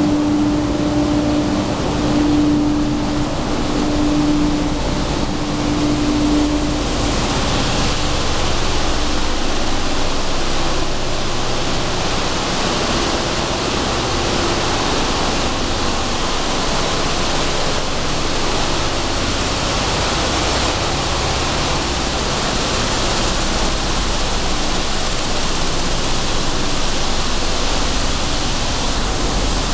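Sunflower seed cleaning and dehulling machinery running: a loud, steady rushing noise, with a steady hum over the first several seconds that then fades out.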